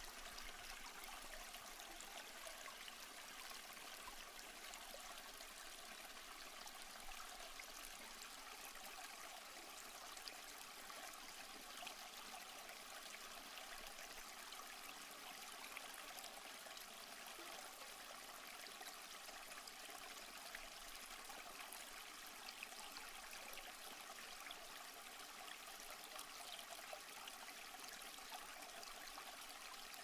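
Waterfall: falling water making a steady, faint, hissing rush with very little low rumble.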